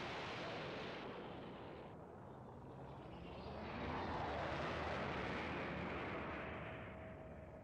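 Cartoon sound effect of a planet exploding: a long, noisy rumbling blast. It eases off after a couple of seconds, swells again about halfway through, then slowly fades.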